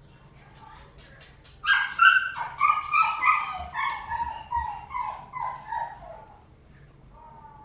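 Animal yelping: a run of about ten short, high-pitched cries, each falling in pitch, starting about one and a half seconds in and fading away over some five seconds.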